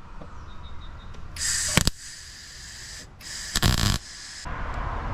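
Welding arc crackling in two short bursts, the first about a second and a half in and the second, longer, about three seconds in, as patches are tacked onto thin sheet-metal firewall.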